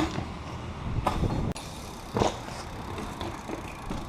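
BMX bike on pavement: three sharp knocks about a second apart, the last the loudest, over a steady low traffic rumble.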